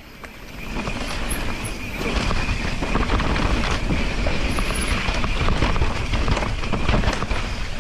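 Santa Cruz Megatower full-suspension mountain bike riding fast down a dirt singletrack: tyres rolling over dirt and leaves with a low rumble, and the bike rattling with many small clicks and knocks over the bumps.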